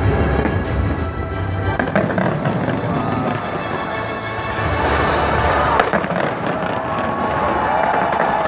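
Large fireworks display: shells and firecracker-style charges bursting in quick succession with constant crackling and booms, the low rumble dropping away about six seconds in. Music plays alongside.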